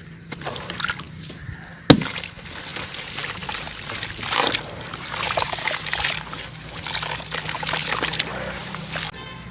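Charcoal sand biscuits, moulded sand-cement chunks, crumbling in water with a crackly, sloshing texture. A single sharp knock comes about two seconds in.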